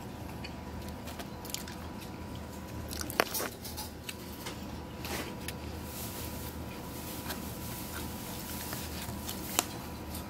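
Plastic fork scraping and tapping in a styrofoam takeout tray of rice, with a few sharp clicks about three seconds in and near the end, over a low steady hum.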